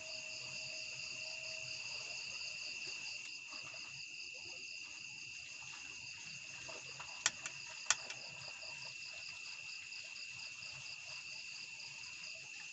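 Steady high-pitched insect chorus, a continuous pulsing trill. Two sharp clicks come about seven and eight seconds in.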